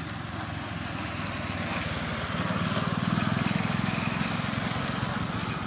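A small engine running, growing louder about two and a half seconds in and easing off near the end.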